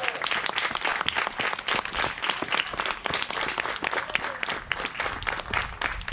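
An audience applauding: many hands clapping at once in a dense, irregular patter.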